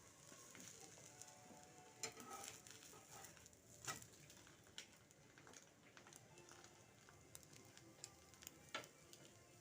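Egg dosa frying on a hot pan: faint steady sizzling, with a few sharp clicks about two, four and nine seconds in.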